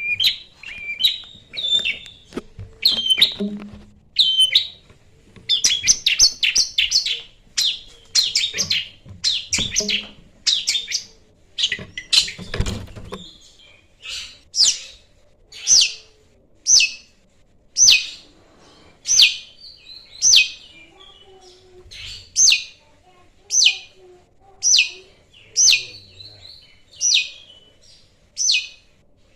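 Long-tailed shrike (cendet) singing: a busy run of varied high chirps and trills for about the first half, then a short, harsh call repeated about once a second.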